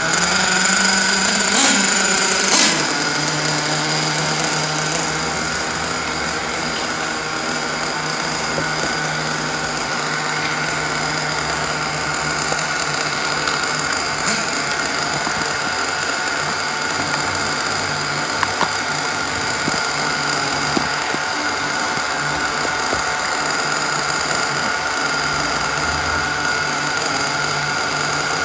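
Kyosho Inferno Neo ST 3.0 nitro RC truggy's small two-stroke glow engine idling with a steady high buzz. Its pitch drops a little about two and a half seconds in as it settles back to idle, then holds level.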